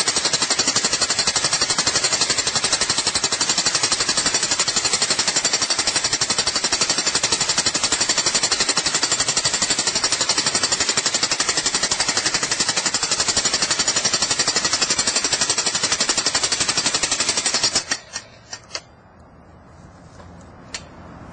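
Corded electric demolition hammer rapidly hammering an Oz Post steel ground spike into the soil, stopping abruptly about three seconds before the end, followed by a few sharp metal clanks.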